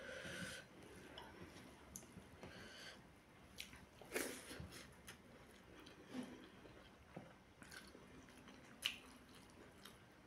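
Faint chewing and wet mouth sounds of someone eating rice and chicken curry by hand, with scattered soft smacks and clicks. The sharpest come about four seconds in and again near nine seconds.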